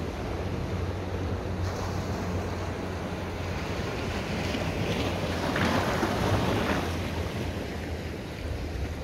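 Sea water washing and a small wave breaking in a harbour, the rush swelling louder about four seconds in and easing off near the end, with wind rumbling on the microphone throughout.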